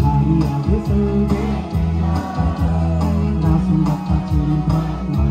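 A man singing a song into a microphone over guitar and a steady beat.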